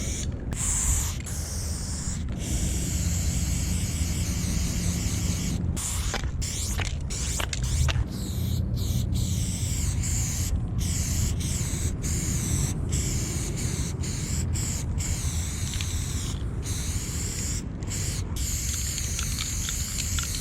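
Aerosol spray paint can hissing in long strokes, broken by more than a dozen brief pauses, over a steady low rumble.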